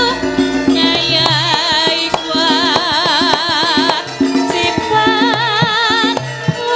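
Javanese gamelan music with a sinden, a female vocalist, singing long phrases with a wavering vibrato. Steady metallophone tones and frequent hand-drum strokes accompany her.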